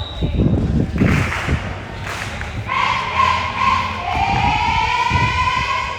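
Dull thumps of a ball on a court, several times. From about three seconds in they are joined by a loud, wavering siren-like tone that dips in pitch and climbs back up.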